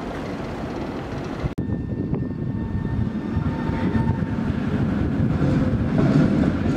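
Tatra T3 tram approaching over street track, its low rumble of motors and wheels on the rails growing steadily louder, with a faint steady whine above it. It follows an abrupt cut about a second and a half in from quieter street rumble.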